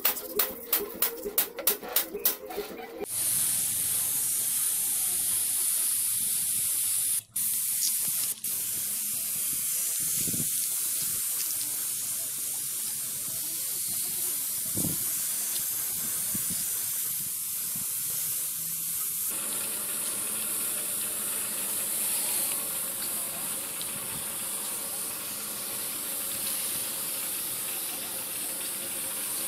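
Spray paint hissing steadily as silver paint goes onto the masked motorcycle engine's covers, with two brief breaks about seven and eight seconds in. It follows about three seconds of rapid, even ticking.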